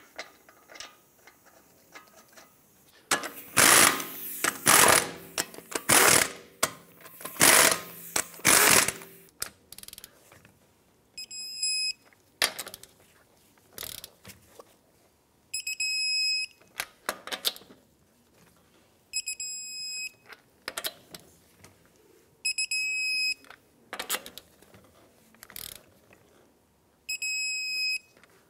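Five short bursts from a power tool running the lug nuts down. Then, while the nuts are torqued in turn, come five short high beeps from an electronic torque wrench, one as each lug nut reaches 100 foot-pounds, with light clicks of the wrench and socket between.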